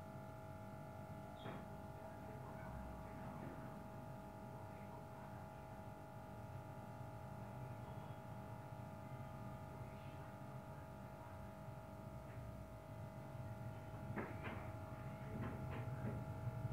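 Faint steady electrical hum made of several held tones over a low background hiss. A few brief faint clicks or murmurs come near the end.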